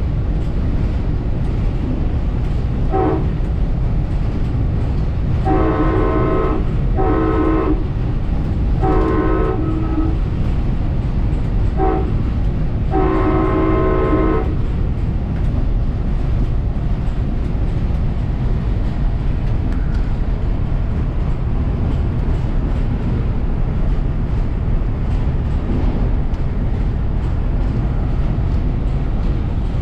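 Nathan K5LA chime air horn on a passenger cab car sounding six blasts, four long and two short, ending about halfway. Underneath, the train running on the rails makes a steady low rumble, heard from inside the cab.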